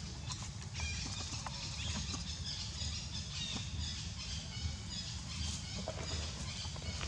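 Outdoor background noise: a steady low rumble under a high hiss, with scattered faint clicks and taps.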